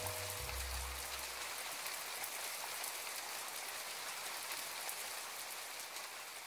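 Steady rain falling, a fine hiss of many small drops. In the first second the last held note of soft music and a low rumble die away under it.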